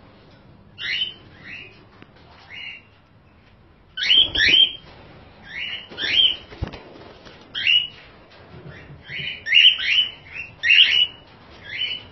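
A flock of cockatiels calling: short, rising, chirping calls one after another, a few at first and then many overlapping from about four seconds in. Two low thumps, at about four seconds and six and a half seconds.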